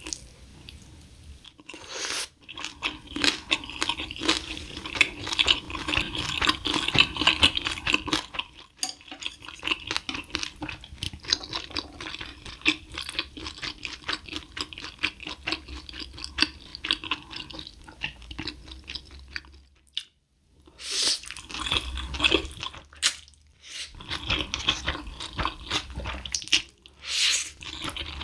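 Close-miked eating sounds: chewing, crunching and wet smacking on spicy fried chicken, then on Buldak fire chicken noodles, with a few short breaks.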